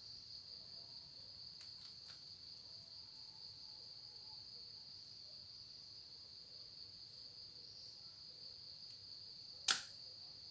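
Faint, steady high-pitched chirring of crickets, with one sharp knock near the end.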